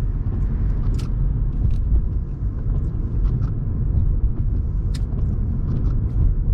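Wind buffeting the microphone of a moving car as a heavy, steady low rumble over road noise, with two sharp ticks, one about a second in and another about four seconds later.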